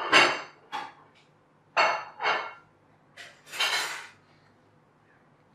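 Cardboard jigsaw puzzle pieces being handled and pressed into place: a series of about six short taps and scrapes in the first four seconds, the last one a longer sliding rub.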